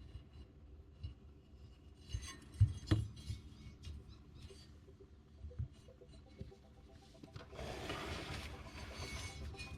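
Hands working a synthetic winch line and small tools on a work surface: a few light knocks and clinks about two to three seconds in, then a longer rubbing, rustling noise near the end as the rope is slid and handled.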